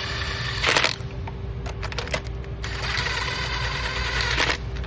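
Ratchet clicking rapidly in two runs, the first ending about a second in and the second lasting about two seconds, as new spark plugs are run down into the cylinder head with a spark plug socket.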